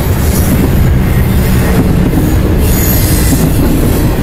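Freight train of double-stack container cars rolling past: a loud, steady rumble of steel wheels on the rails.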